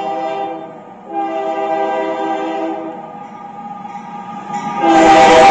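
Diesel locomotive's multi-tone air horn sounding in long blasts as a train approaches, with a short break about a second in. Near the end the sound jumps sharply louder as the locomotive reaches the camera, its running noise joining the horn.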